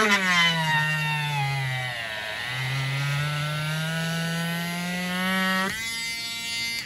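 Small handheld windshield repair drill boring into the windshield glass at the stone break: a buzzing motor whine whose pitch sinks as the bit bites into the glass, is lowest about two seconds in, then climbs back before the drill stops shortly before the end.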